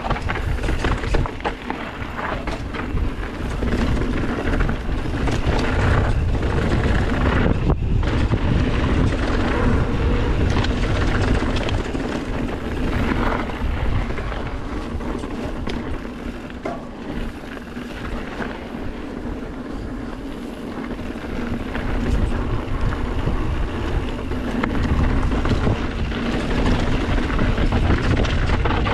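Mountain bike riding fast down a dirt trail: tyres rumbling over the ground with a constant clatter of knocks and rattles from the bike over rough terrain, and wind buffeting the microphone.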